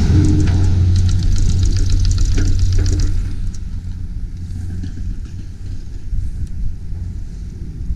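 Skis scraping and carving over packed snow while wind buffets the action camera's microphone with a heavy rumble. The scraping hiss is loudest for about the first three seconds, then eases off and leaves mostly the wind rumble.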